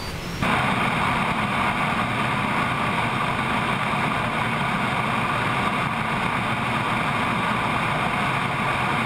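Steady rush of airflow and jet engine noise outside a Boeing 777F on final approach, with the landing gear extended. It starts abruptly about half a second in.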